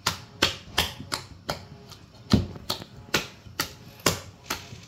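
A bare hand beating soft bara batter in a stainless steel bowl: a steady run of wet slaps, about two to three a second, with one heavier slap a little past the middle.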